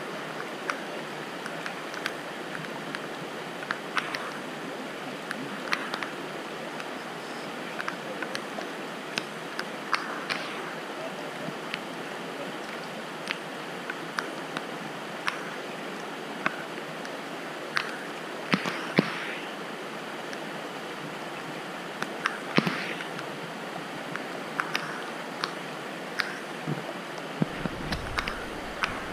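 Creek water running steadily, with irregular clicks and rattles of gravel and stones being swirled and washed in plastic gold pans.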